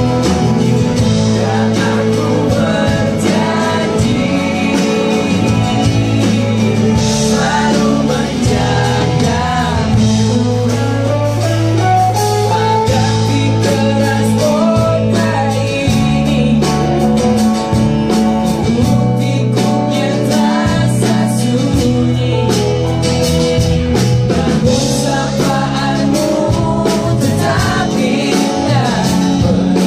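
Live band music: a male lead singer sings over strummed acoustic guitar, electric bass and keyboard with a steady beat.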